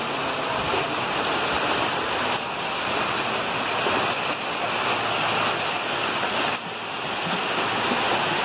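Muddy flash-flood water rushing down a street: a steady rush of running water.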